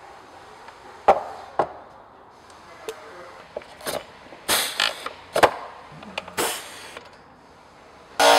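Hand pop-rivet gun setting 4 mm pop rivets into a snorkel adapter plate on an airbox: a run of short, sharp clicks and clacks, two about a second in and more bunched around the middle, as the tool is squeezed and the rivet mandrels snap.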